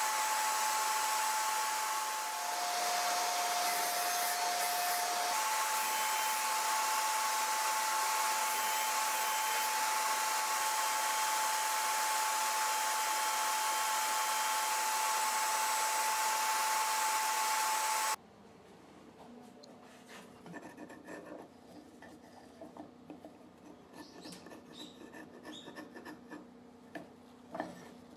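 Table saw running with a steady motor whine while small wooden blocks are pushed through on a sled to cut notches. The noise stops abruptly about two-thirds of the way in, and light clicks and knocks of wooden pieces being handled and fitted together follow.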